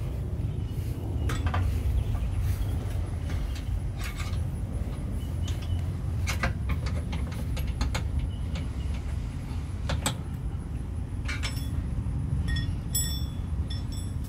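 Scattered sharp metallic clicks and clinks from hand work on a car's front suspension, with a short run of ringing clinks near the end, over a steady low rumble.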